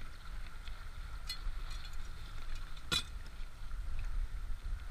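Wind buffeting the microphone as a steady low rumble, with a few faint ticks and one sharp click about three seconds in.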